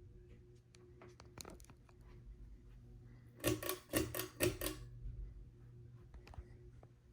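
Quorum Prizzm ceiling fan running with a steady low hum, broken about halfway through by a quick burst of about five loud clicks and rattles, with a few faint ticks before and after.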